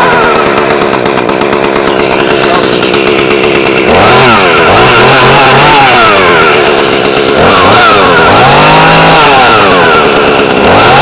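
Echo CS310 chainsaw's two-stroke engine running on an external 12-volt CDI ignition. It idles steadily, then about four seconds in it is revved up and back down twice, rising again near the end.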